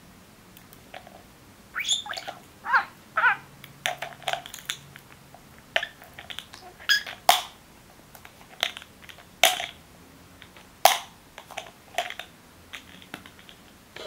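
Small plastic bottle lids being knocked against and dropped onto each other by a budgerigar: an irregular string of sharp plastic clacks beginning about two seconds in. A few short budgie chirps come in among the first clacks.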